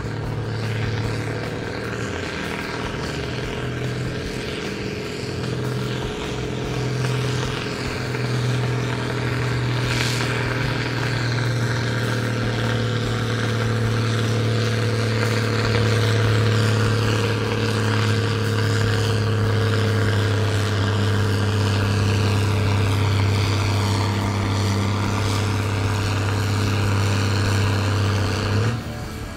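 Farm tractor's diesel engine at full load, pulling a weight-transfer sled: a steady, deep drone that slowly grows louder and cuts off abruptly near the end.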